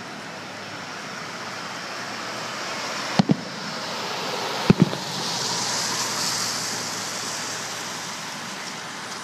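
Two aerial firework shells bursting, each a quick double boom, about three and about four and a half seconds in, over a steady hiss of road noise. A car passes close by in the middle, its tyre hiss swelling and fading.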